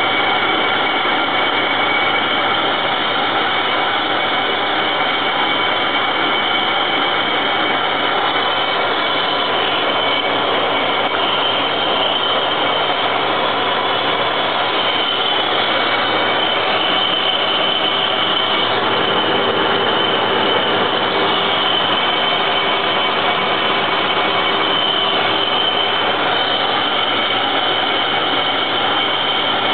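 1K62 lathe turning a cast-iron car brake drum at about 100 rpm, a carbide insert taking a cut at heavy feed: steady machine running noise and cutting, with several steady high-pitched tones from the lathe's gearing.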